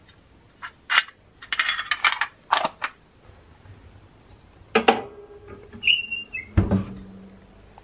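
A small hinged metal tin being handled and clicked shut, a sharp metallic clank with ringing as it goes into the stove, then a short squeak and a heavy ringing clunk as the cast-iron wood-stove door swings shut.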